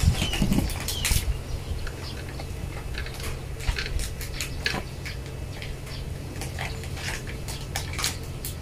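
Scattered small clicks, ticks and scratches of hands handling electrical wire and small parts at a workbench, a few louder knocks in the first second, over a steady low hum.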